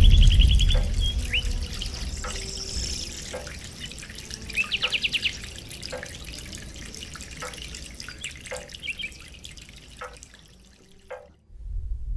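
Water dripping in a slow rhythm, about one drop a second, with a few short high chirping trills. It fades almost to silence near the end, then a low rumble swells in.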